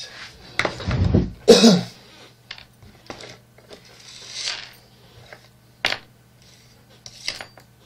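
Small metal jaw harp parts clinking and being handled on a workbench. There is a loud knock with handling rumble about a second in, then scattered sharp clicks, the clearest two near six and seven seconds.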